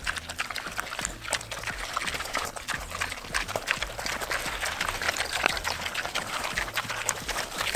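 Three young pigs eating ground grain feed from a pan: wet chewing and slurping, many small irregular clicks.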